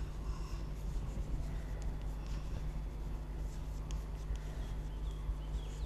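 Chalk writing on a blackboard: faint scratching strokes and small taps as letters are formed, over a steady low hum.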